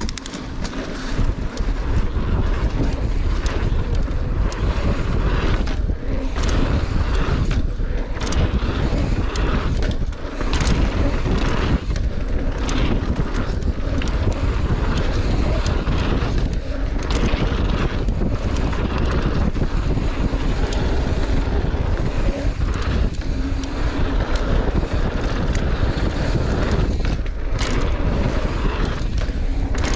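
Mountain bike ridden fast down a dirt jump trail, heard from a handlebar-mounted camera: wind buffeting the microphone over the steady low rumble of the tyres and bike on packed dirt, with a few brief lulls.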